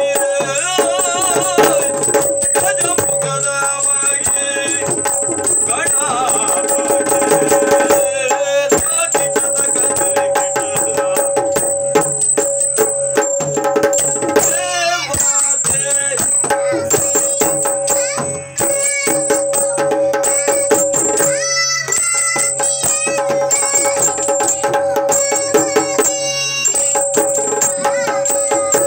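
Yakshagana bhagavata singing by a young girl and a man in a duet, with drums played throughout and a steady drone underneath.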